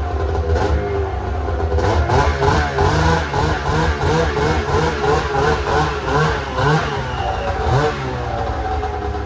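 Snowmobile engine running, revved up and down in quick repeated blips from about two seconds in, then settling back to a steady idle near the end.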